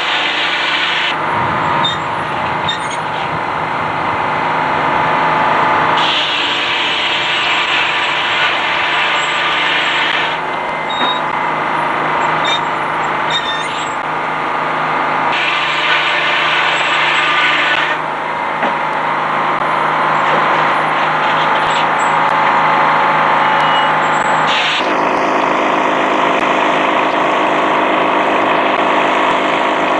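Antique Frick circular sawmill running steadily, a loud machine hum with several held pitches. In spells of a few seconds the sound turns harsher and brighter as the big blade cuts through a log.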